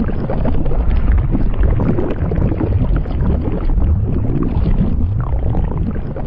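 Human stomach growling: a long, continuous low rumbling gurgle, with a few brief rising and falling whines in pitch.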